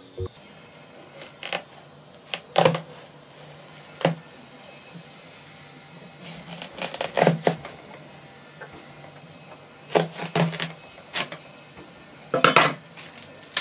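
Scattered clinks and knocks of dishes and utensils in a kitchen: about ten short, sharp sounds at uneven intervals, some in quick pairs, over a low steady background.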